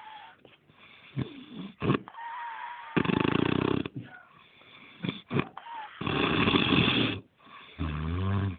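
A man snoring loudly in his sleep: two long, heavy snores about three and six seconds in and a lower one near the end, with a thin whistle in the quieter breaths between them.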